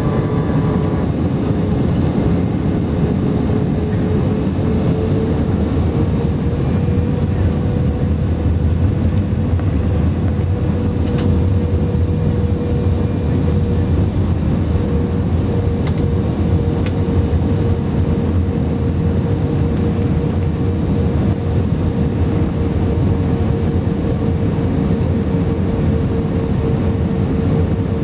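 Cabin noise of an Airbus A320-family airliner on approach with flaps extended, heard from a window seat over the wing: a steady, loud rumble of engines and airflow. A held engine tone rises slightly a few seconds in, then stays level.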